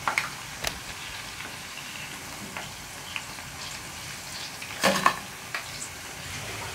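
Hot oil sizzling steadily as puli pitha dumplings deep-fry in a pan. Metal tongs and a slotted spoon click against the pan as the fried pieces are lifted out, with a few clicks near the start and a louder clatter about five seconds in.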